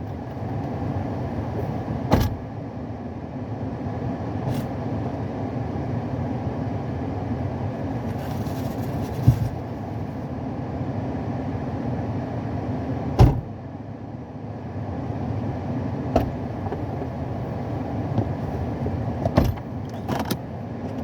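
Steady low vehicle rumble, with several sharp knocks or clicks spread through it.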